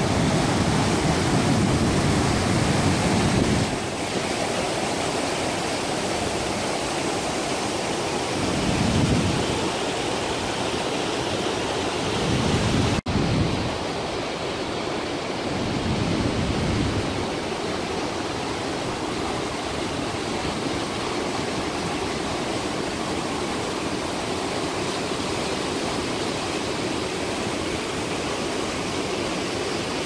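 Waterfall rushing steadily, with low gusts of wind on the microphone now and then. The sound cuts out for an instant about thirteen seconds in.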